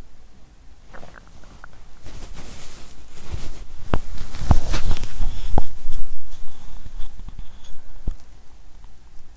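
Handling noise from a small microphone pressed against a bare belly: fingers and clothing rubbing and rustling against it. The noise is loudest around the middle, with a few sharp knocks as the microphone is shifted and resettled.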